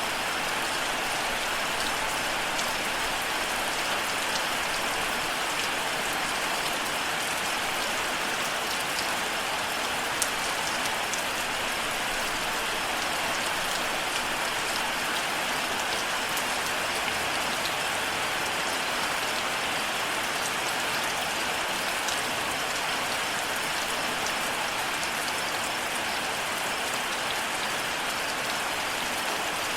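Steady rain falling, an even hiss with scattered sharp drop ticks, one a little louder about ten seconds in.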